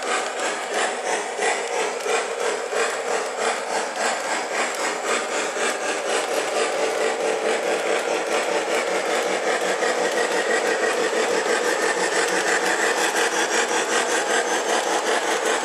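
O-gauge model trains running on three-rail track: a steady rumbling whir of wheels and motors with a fast, even pulsing, growing a little louder in the second half.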